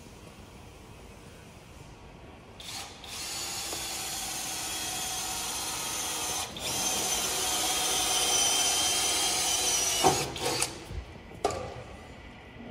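Handheld electric power tool running in a long stretch with a steady whine, broken by a brief pause in the middle. It stops about ten seconds in, and a few sharp knocks follow.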